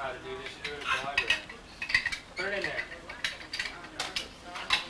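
Light clinking and clattering of small hard objects, with short snatches of indistinct voices in the background.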